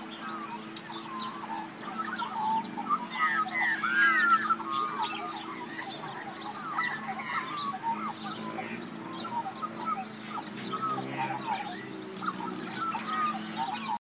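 Australian magpie carolling: a rich warbling song of many quick, looping whistled glides, busiest a few seconds in, over a steady low hum.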